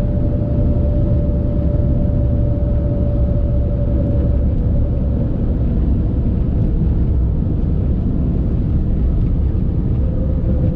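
Car driving at speed: a loud, steady rumble of road and wind noise with a steady whine that drops slightly in pitch about halfway through.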